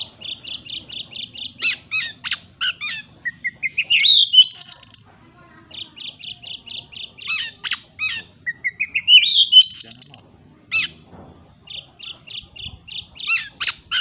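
Caged oriental magpie-robin (kacer) singing loudly in phrases with short pauses between them, its song made up of mimicked small-bird calls. Each phrase is a quick run of repeated high chirps, then sharp sweeping notes, then a rising series of notes ending in a high trill. The pattern comes about twice in full, and a third phrase starts near the end.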